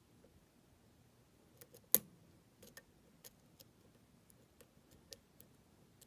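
Lock pick and tension wrench working the pins of a pin-tumbler lock: faint, scattered small metallic clicks, with one much sharper click about two seconds in.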